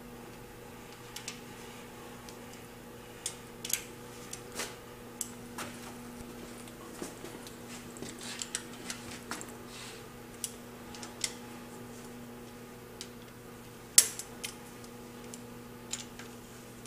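Scattered metal clicks and clinks of a socket wrench on the rocker-rail bolts of a Ford 390 FE V8 as they are run down a couple of turns at a time, with one sharper clack about 14 seconds in. A steady low hum runs underneath.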